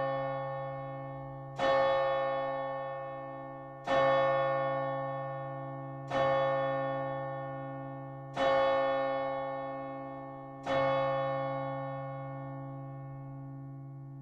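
Large bronze church bell cast by Geert van Wou in 1502, tuned to C-sharp, struck at a steady slow pace, about one stroke every two and a quarter seconds, five strokes in all. Each stroke rings on with a deep hum and bright overtones and fades slowly under the next; the last one dies away.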